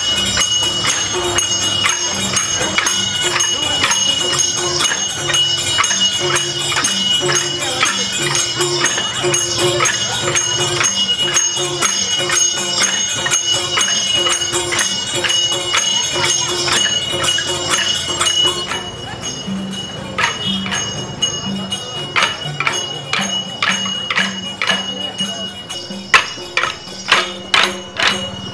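Traditional street dance music: a two-headed barrel drum keeps the beat under small hand cymbals ringing steadily, with wooden dance sticks clacking together. About 19 seconds in, the cymbals' ringing drops away and sharp wooden stick clacks come to the fore, loudest near the end.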